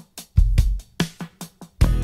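Background music: a drum beat of quick, regular sharp hits with a deep kick about half a second in, the rest of the band coming in near the end.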